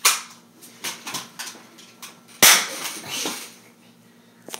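A single loud, sharp bang about two and a half seconds in, trailing off over most of a second, among a few lighter knocks and clicks.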